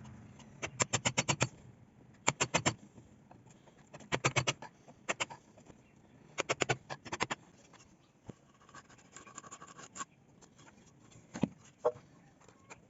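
Hand tool working wood: short bursts of quick, sharp strokes, several a second, repeated about five times with pauses between.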